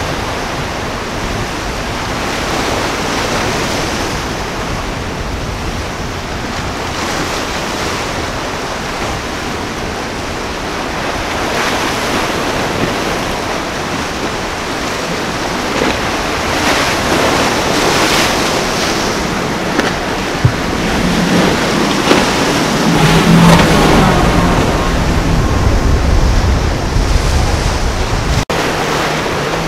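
Ocean surf and wind buffeting the microphone, with a center-console boat's outboard motors running past, growing louder in the second half and loudest about three quarters through. The sound breaks off for an instant near the end.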